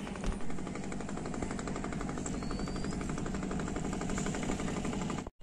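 A boat's engine chugging in a rapid, steady rhythm. It cuts off suddenly near the end.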